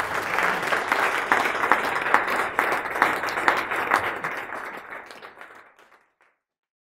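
Audience applauding, dense clapping that fades away over the last couple of seconds and stops about six seconds in.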